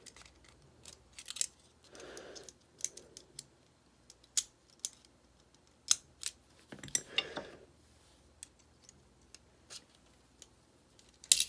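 Small steel parts of a Ruger Mark IV pistol's frame clicking and scraping irregularly as they are worked loose by hand, with a louder clatter of clicks near the end.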